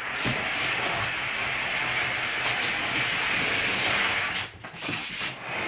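IKEA Hemnes daybed being dragged across a wooden floor, a steady scraping rumble that breaks off briefly about four and a half seconds in and then starts again.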